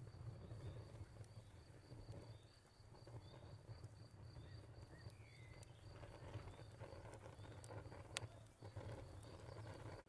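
Faint outdoor ambience: an insect chirping in a quick, even pulse that pauses for a few seconds in the second half, over a low steady rumble, with one sharp click near the end.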